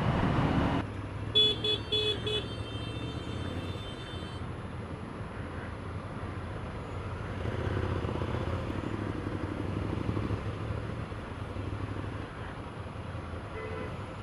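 A vehicle horn honks three quick times about a second in, then a fainter horn tone holds for about two seconds, over the steady low running of engines in slow road traffic. Another short faint honk comes near the end.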